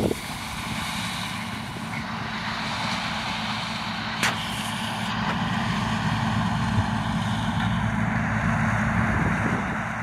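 John Deere combine harvesting corn: a steady engine hum mixed with the machine's threshing noise. A single sharp click comes about four seconds in.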